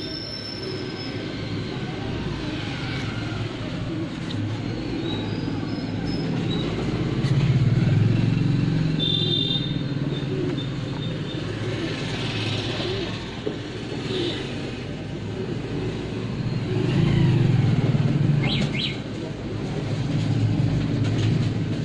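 Road traffic noise: the low rumble of passing motor vehicles, swelling twice as vehicles go by, with a few short high chirps.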